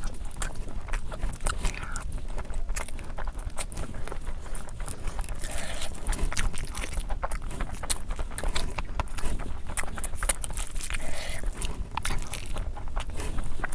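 Close-miked chewing and mouth sounds of a person eating curry with rice: many short, wet clicks coming irregularly and without pause.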